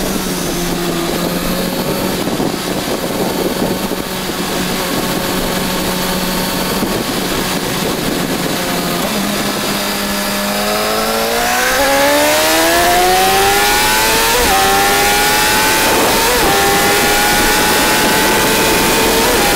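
Suzuki GSX-R sportbike's inline-four engine heard from the rider's seat at high speed, with wind rushing over the bike. The engine holds a steady note, then about ten seconds in it pulls hard, its pitch rising for a few seconds before levelling off high and creeping slowly upward as the wind grows louder.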